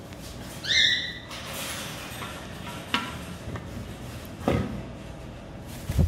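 African grey parrot giving one short, rising, whistle-like call, followed by a few sharp clicks and knocks as it plays.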